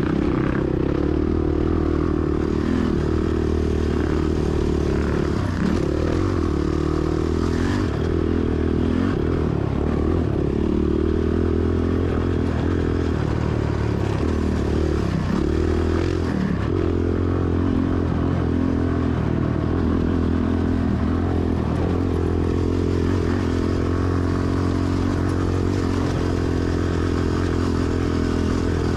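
Honda TRX450ER ATV's single-cylinder four-stroke engine running steadily at trail speed, its pitch rising and falling slightly with the throttle, with rattling and scraping from the machine over the rough dirt track.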